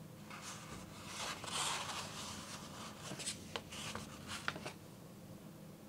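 Stiff sheets of handmade egg-carton paper rustling and rubbing against each other as they are handled, followed by a few light ticks and scrapes.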